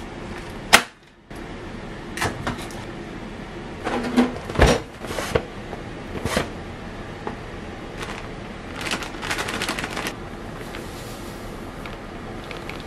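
Kitchen handling sounds while weighing baking ingredients: a few sharp knocks of bowls and utensils set down on a counter and kitchen scale, and packaging rustling about nine seconds in, over a steady background hum.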